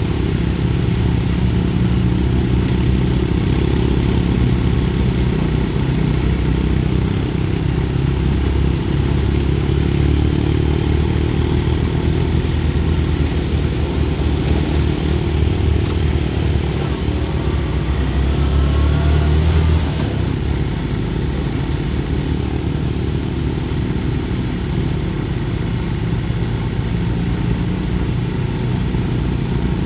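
Motorcycle engine running at road speed with a steady low drone and rushing road noise. It swells a little and then drops suddenly about two-thirds of the way through.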